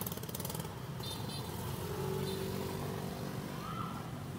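Motorbike engines in street traffic. One runs close by with a fast, even putter for about the first second, then settles into a steady traffic hum.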